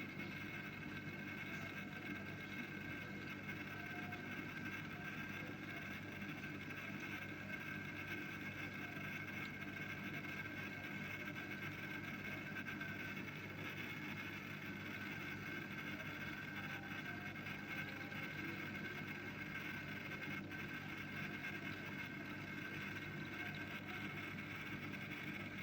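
Steady background hum with faint, thin high-pitched whining tones, unchanging throughout.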